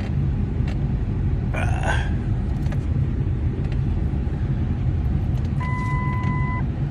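Steady low rumble of a car driving. A short noisy sound comes about a second and a half in, and a single steady electronic beep lasting about a second near the end.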